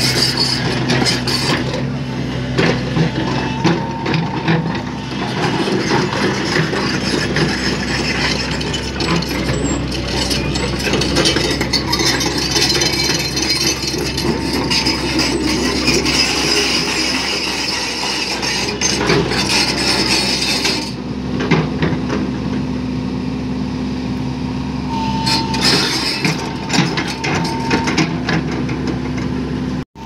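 Crawler excavator's diesel engine running steadily, with frequent metallic clanks and rattles.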